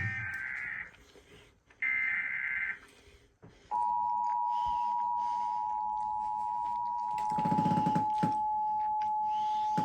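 Emergency Alert System SAME header: two short bursts of warbling digital data tones, about a second apart. About four seconds in the EAS two-tone attention signal starts and holds steady, marking the start of an alert broadcast.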